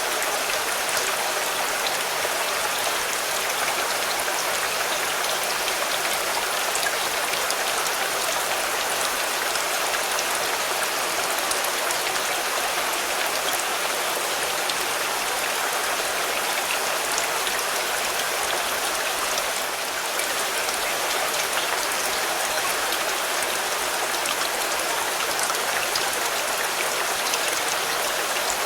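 Steady rain drumming on a car, a dense even hiss with many small sharp drop ticks.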